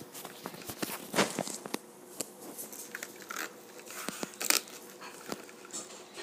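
Irregular clicks, taps and scrapes of crayfish shells and claws against a thin clear plastic tray as the crayfish crawl and grapple and the tray is handled, with sharper loud clacks about a second in and again about four and a half seconds in.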